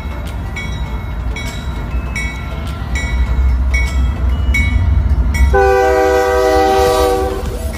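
GE ES44AC diesel-electric locomotive passing close by with its engine rumbling and its bell ringing at a steady pace. About five and a half seconds in, its multi-chime air horn sounds one loud chord for about two seconds.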